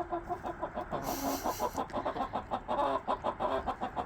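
Backyard hens clucking and squawking continuously in fast, repeated calls, an agitated racket that the keeper hears as the birds being upset and mad. A brief hiss comes about a second in.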